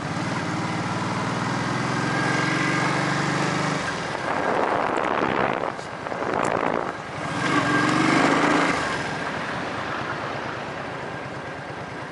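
An engine running close by, with louder noisy surges midway before the engine note returns.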